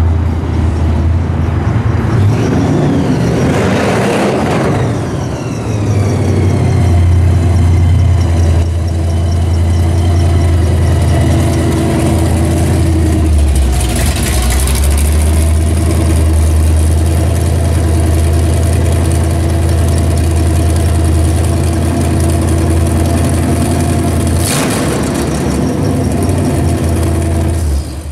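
Mad Max Interceptor replica's blown V8 running loud through four-pipe side exhausts, idling with a rev about four seconds in and a whine that falls away after it, then short throttle blips around the middle and near the end.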